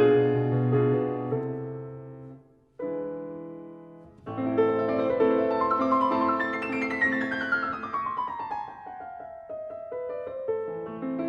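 Background piano music. It fades almost away about two and a half seconds in, then starts a new phrase with a long descending run of notes.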